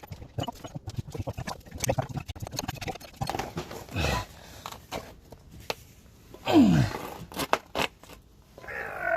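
A ball joint press tool being wound in with a hand tool, with repeated metal clicks and scrapes as the new ball joint is forced into the suspension arm. A few short groans fall in pitch along the way, and the joint is binding on a slight angle.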